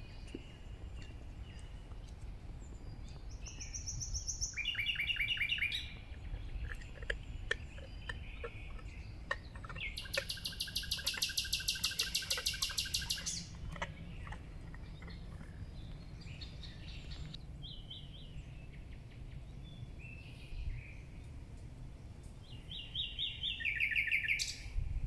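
Small songbirds singing: short chirping phrases and rapid trills, the longest a fast, even trill of about three seconds near the middle, with another trill series near the end, over a low steady outdoor rumble.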